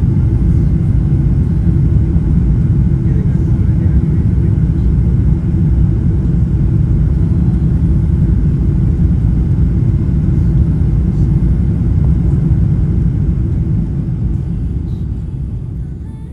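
Steady low rumble of a Boeing 777's engines and airflow heard inside the passenger cabin, fading out near the end.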